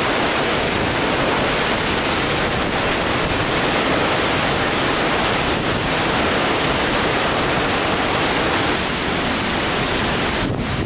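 Hurricane wind blowing hard through the trees, a loud, steady rush of noise.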